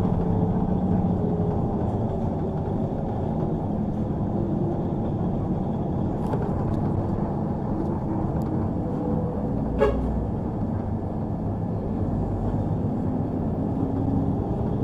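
City bus running, heard from inside the passenger cabin: a steady engine and road noise, the engine note slowly shifting in pitch, with one sharp knock about ten seconds in.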